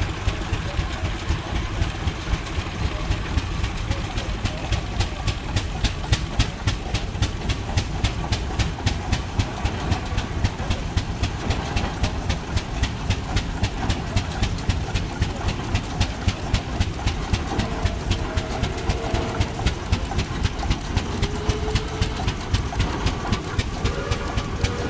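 Rumely OilPull tractor's engine running as the tractor rolls by on steel wheels, its exhaust giving a loud, even beat of pops over a low rumble.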